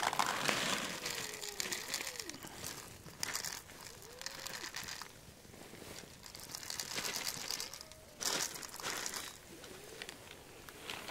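Dry cat kibble rattling out of a plastic jug onto paving stones, poured in several short bursts, with a few faint arching calls between the pours.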